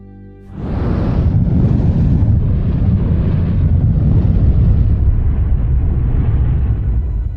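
Fire sound effect: a loud, low, rushing rumble that comes in about half a second in, holds steady and fades out at the very end.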